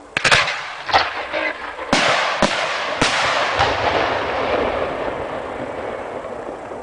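Aerial fireworks being launched from the ground: a quick series of sharp bangs, about seven in the first four seconds, followed by a long rolling echo that slowly fades.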